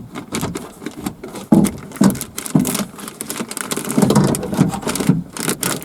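Irregular clattering and knocking of a car's rear-door window regulator and motor assembly being turned and worked out of the door.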